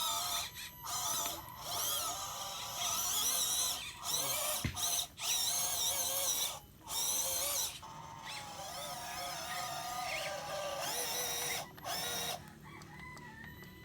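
Small electric motor and gearbox of a WPL BJ40 RC truck whining, the pitch rising and falling with the throttle. It cuts out briefly several times as the throttle is let off.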